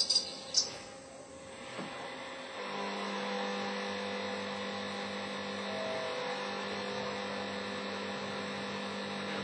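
Haas TL-15 CNC lathe machining an aluminium part: a high whine falls away and ends with a click under a second in. From about three seconds in, the machine runs with a steady hum.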